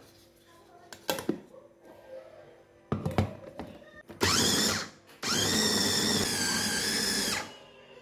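Electric mini food chopper grinding raw chicken pieces. A couple of knocks as the lid and motor head are fitted, then a short pulse of the motor with rising pitch, and a longer run of about two seconds with a steady high whine.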